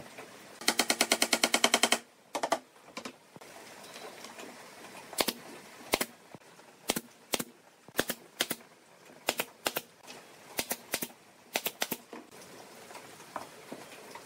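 Pneumatic brad nailer driving brads into a wooden ring frame: more than a dozen sharp shots, singly and in quick pairs and threes. A rapid rattle of about a dozen strokes comes about a second in.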